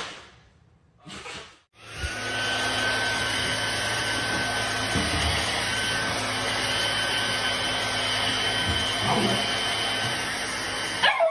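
A steady electric motor running with a constant high whine, like an appliance motor. It starts about two seconds in and cuts off suddenly just before the end.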